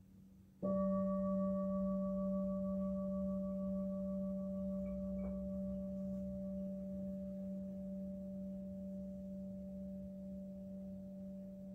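A singing bowl struck once with a mallet, about half a second in, ringing a low steady tone with fainter higher overtones that slowly fades.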